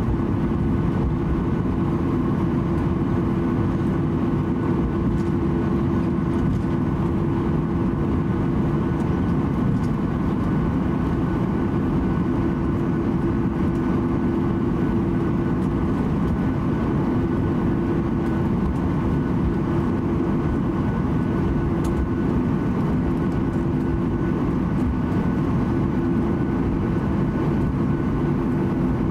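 Boeing 737-800 cabin noise while taxiing: a steady drone from its CFM56-7B turbofan engines at low taxi power, with a low rumble and a steady hum heard from inside the passenger cabin.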